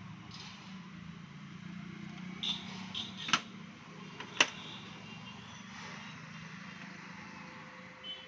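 Brother DCP-L2520D laser printer initialising after a toner-counter reset, its display reading 'Please Wait': a steady low hum with four sharp mechanical clicks between about two and a half and four and a half seconds in, the last the loudest.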